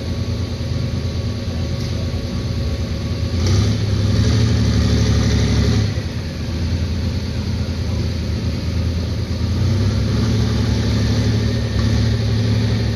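Tractor engine running at a pull, revved up louder for a couple of seconds about a third of the way in and again from about ten seconds on.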